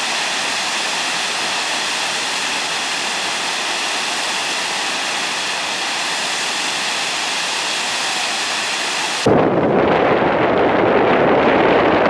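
Waterfall rushing steadily. About nine seconds in it cuts off abruptly to wind buffeting the microphone.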